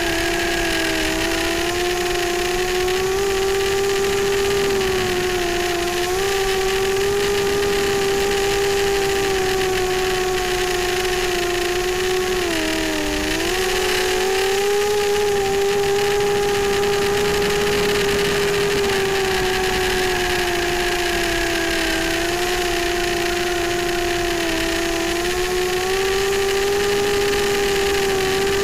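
FPV multirotor racing drone's electric motors and propellers whining steadily in flight, the pitch wavering slightly and dipping briefly then rising again about halfway through, over a steady hiss.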